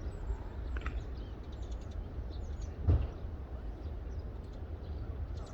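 Outdoor ambience with a steady low wind rumble on the microphone, and one sharp knock about three seconds in.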